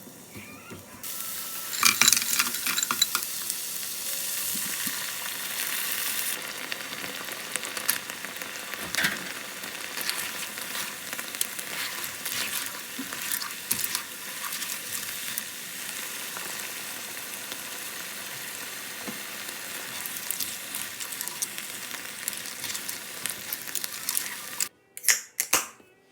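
Food frying in a pan, sizzling with scattered crackles. The sizzle starts suddenly about a second in, crackles loudest just after, and cuts off near the end, followed by a few sharp knocks.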